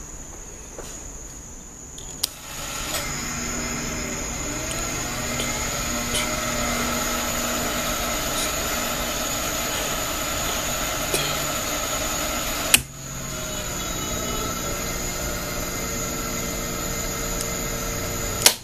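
Hammond B3 organ being started: a switch clicks and the start motor and tonewheel generator spin up into a steady mechanical whirr with several steady tones. A second switch click about two-thirds through briefly dips the sound before it settles again, and a last click comes near the end.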